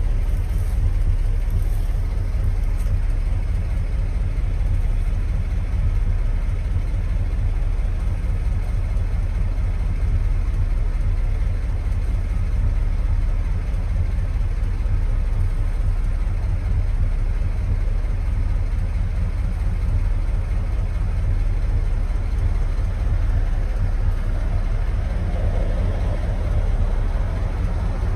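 Steady low rumble of a vehicle engine.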